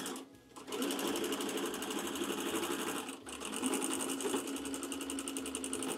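Home sewing machine running at speed in straight stitch, the needle going through the thick thread of the zigzag-stitched monogram. The machine stops briefly just after the start and dips again about three seconds in.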